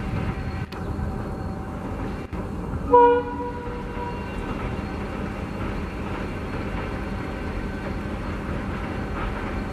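WDP4 diesel locomotive passing with its passenger train: steady engine rumble and wheel noise, with one short horn blast about three seconds in.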